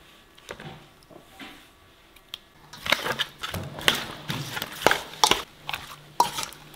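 Raw fish pieces being tossed with a seasoning paste in a stainless steel bowl: wet squelching and a metal spoon clinking and scraping against the bowl. The first few seconds are quiet with only a few small clicks, and a quick run of clinks follows from about three seconds in.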